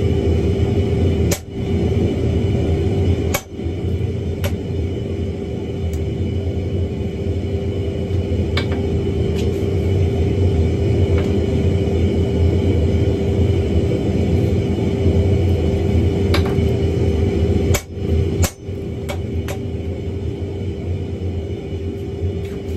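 Hand hammer blows on red-hot wrought iron at an anvil, a few sharp strikes scattered through, over a steady low hum with a constant tone.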